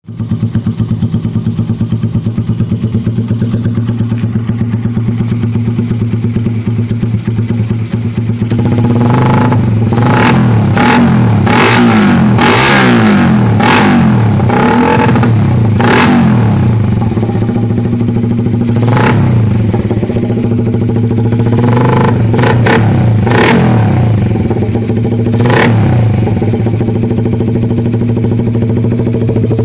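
Motorcycle engine through an aftermarket round-type JEC Speed pipe exhaust, idling steadily, then revved in a series of quick throttle blips from about eight seconds in, settling back to idle near the end.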